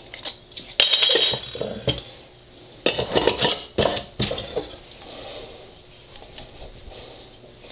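Small glass mason jars clinking and rattling as their metal lids are put on and the jars, with melted butter inside, are shaken. The clinks come in two bursts, about a second in and again from about three to four seconds in.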